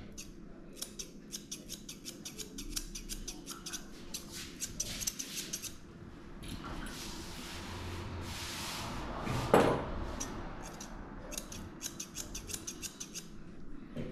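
Grooming scissors snipping through a dog's coat in quick runs of rapid cuts, while the head is trimmed. A single sharp knock about two-thirds of the way through.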